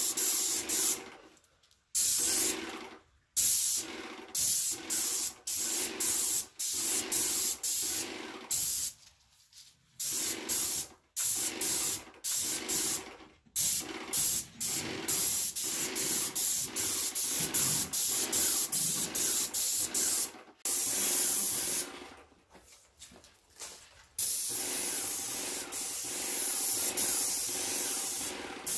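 Paint spray gun hissing as primer is sprayed onto bare wood, in many short passes that start and cut off sharply as the trigger is pulled and released, then one longer unbroken pass near the end.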